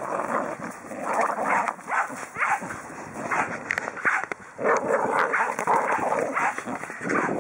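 Two pit bull-type dogs play tug-of-war on a length of canvas hose, making dog vocal sounds in irregular bursts.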